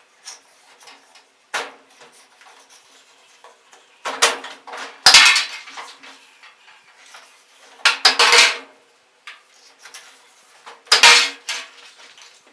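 Hard plastic and metal parts clattering and clinking in a few short bursts several seconds apart as the washing machine's control knobs are pulled off and the control panel is handled.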